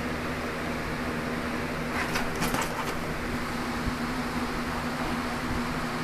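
Steady mechanical hum with a low tone, like a fan, running under everything. About two seconds in comes a brief rustling scuffle lasting under a second.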